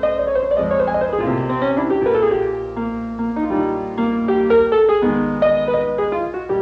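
Slow blues piano with no singing, struck chords and single-note runs ringing out one after another.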